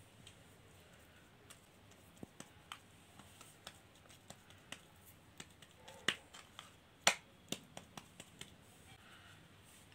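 Irregular light taps and pats of fingers pressing a potato-stuffed dough ball flat on a wooden board, a few a second, with two sharper taps just past the middle.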